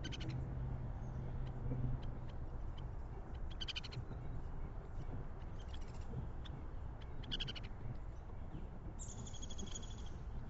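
Backyard songbird calls: several short, rapid pulsed calls a few seconds apart, then a longer call of about a second near the end, over a steady low background noise.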